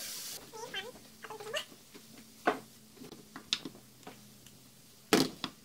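A cat meowing a few short times, over light clicks of a spatula and bowl against the wok and a faint steady hum, with a louder clatter near the end.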